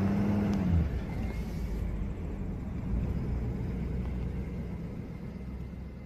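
Steady low rumble of a car's engine and road noise, fading toward the end.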